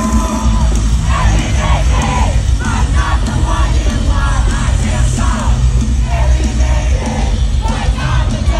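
Live rock band playing loudly through a concert PA, heard from within the crowd, with heavy bass and yelled vocals over it from about a second in.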